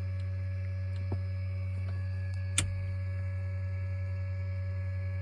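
Steady electrical hum in a light twin's cockpit, with a sharp switch-like click about halfway through.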